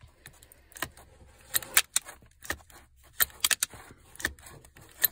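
Metal levers and catches of a Honda Odyssey power sliding door latch assembly clicking and clacking irregularly as they are worked back and forth by hand. The latch is gummed up with dried factory grease and freshly sprayed with penetrating oil to free it.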